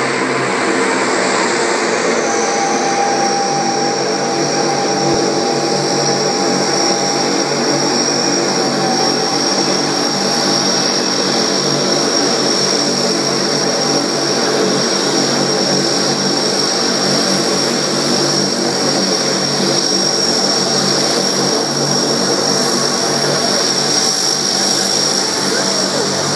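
NASA Super Guppy Turbine's four Allison 501 turboprop engines running as the aircraft taxis: a loud, steady propeller drone with a high turbine whine above it from about two seconds in.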